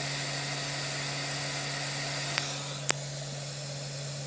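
MakerBot Replicator 2 3D printer humming steadily while it heats its extruder for a filament load, its fans running. Two sharp clicks come a little past the middle, and the hum drops slightly after the second.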